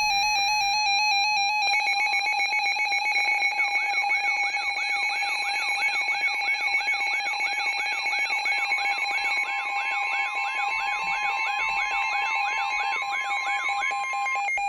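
Several electronic weather-alert alarm tones sounding together: a steady, rapidly pulsing multi-tone beep, joined about three and a half seconds in by a repeating warbling sweep about three times a second, and near the middle by a single steady tone.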